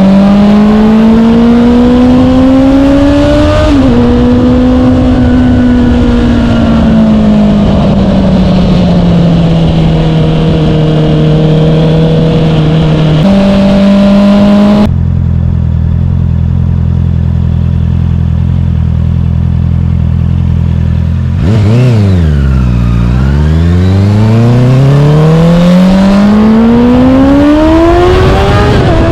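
Honda CBR650R inline-four engine through an Akrapovic full-system exhaust with the inner silencer removed. It climbs in pitch under acceleration and drops sharply at an upshift, cruises, then settles to a steady low idle for several seconds midway. After that it dips and climbs again as the bike pulls away, with another shift near the end.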